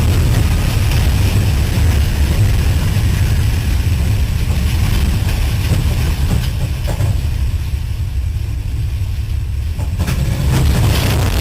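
Heavy, steady low rumble of a vehicle, easing off from about seven to ten seconds in.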